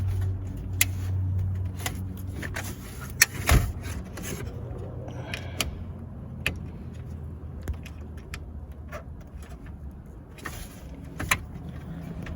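Scattered sharp clicks and knocks of hands working a car stereo's plastic wiring connectors and the unit itself, pressing the latches to release them, with a low hum in the first couple of seconds.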